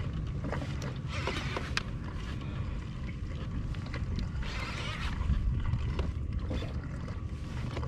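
Conventional fishing reel being cranked in short bursts against a hooked fish, with ticks and grinding from the reel over a steady low rumble.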